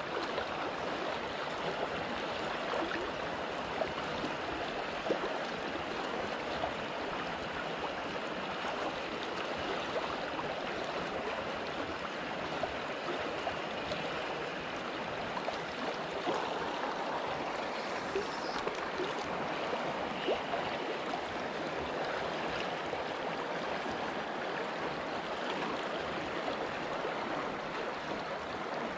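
River water rushing steadily over rocky riffles.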